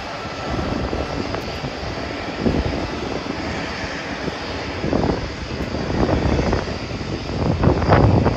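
Airliner engines: a steady noise that swells louder near the end as the aircraft passes.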